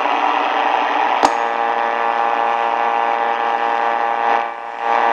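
Hallicrafters SX-100 shortwave receiver's speaker output: a hiss of band static, a sharp click a little over a second in, then a steady buzzing tone with many overtones over the static. The sound fades and swells again near the end.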